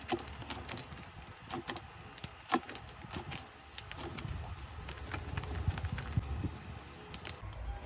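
Scattered light clicks, taps and rustles of small objects being handled, such as photocards and their plastic packaging, over a low rumble.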